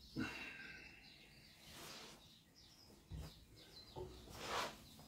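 Soft thumps of feet and body shifting on a carpeted floor, then a short forceful breath out about four and a half seconds in, with faint birdsong outside.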